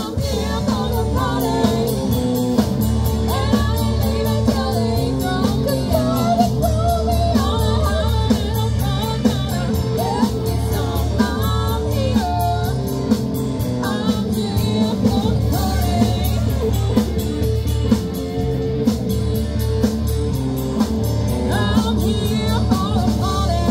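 Live rock band playing, a woman singing lead over electric guitars, bass and keyboard with a steady beat.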